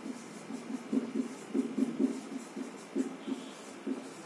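Felt-tip whiteboard marker squeaking on a whiteboard as it is written with, in short strokes of about three or four a second.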